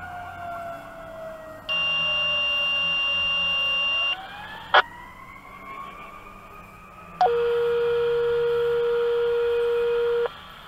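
Radio dispatch alert tones: a high steady tone for about two and a half seconds, then a sharp click, then a lower steady tone for about three seconds. Under them a siren slowly winds down and then slowly winds back up.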